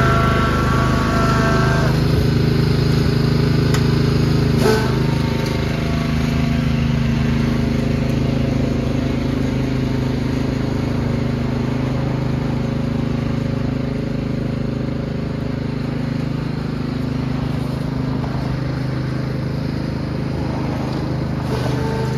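Simplicity garden tractor engine running steadily while it tows a weighted tine dethatcher across the lawn, growing slightly quieter as it moves away. A single clank sounds about five seconds in.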